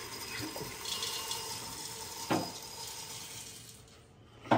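Puffed bajra (pearl millet) kurmura being poured from a perforated steel colander into an aluminium pot: a steady rushing hiss of the light grains, fading toward the end. There are two metal knocks, the louder one near the end.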